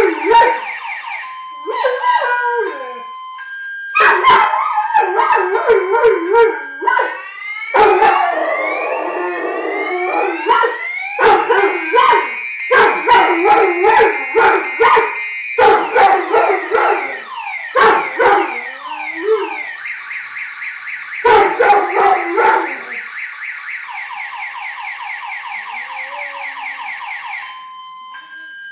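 Weimaraner howling along to a car alarm, in several long wavering howls, while the alarm cycles through its tones: rising sweeps, steady beeps and a fast warble. Near the end the howling stops and only the alarm's rapid warble goes on, then it cuts off.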